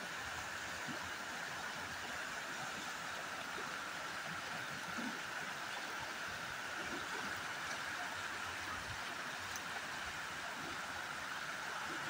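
Steady rushing of flowing river water, an even hiss that holds at one level throughout.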